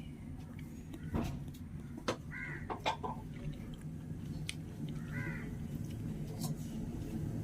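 A crow cawing, with calls about two seconds in and again about five seconds in, over a steady low background rumble. A few sharp knocks come early on.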